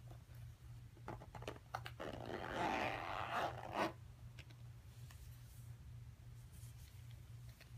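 Zipper on a cork-fabric pouch being pulled shut in one long zip of about two seconds, after a few light clicks as the pull is gripped.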